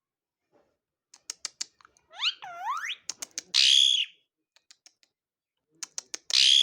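Pet parrot making a run of sharp clicks, a rising whistle, and two loud harsh squawks, the first about three and a half seconds in and the second at the very end.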